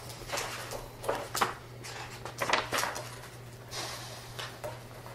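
Sheets of paper being handled and shuffled, in several short rustles, over a steady low hum.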